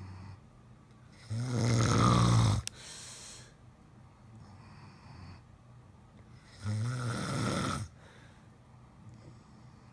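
A man and a German Shepherd snoring in their sleep. Two long, loud snores come about five seconds apart, with softer, higher breathing sounds between them.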